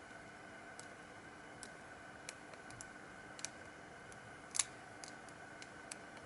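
Faint, irregular small clicks over a steady low hum, with one louder click about four and a half seconds in.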